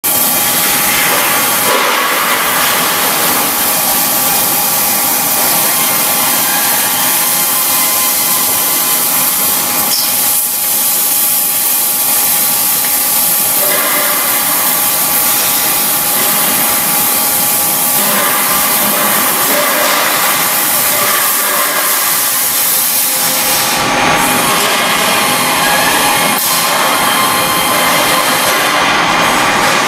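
Oxy-fuel cutting torch on a portable H-beam cutting machine burning through steel: a loud, steady hiss with a few steady tones running through it.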